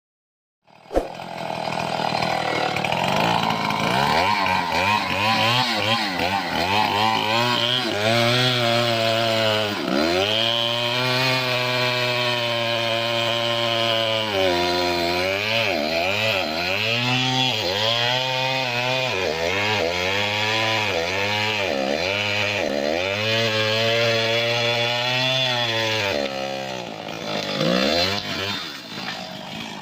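A Stihl two-stroke chainsaw starts up suddenly about a second in and runs at full throttle. From about a third of the way in, its pitch repeatedly sags and recovers as it cuts through acacia wood under load, and it eases off near the end.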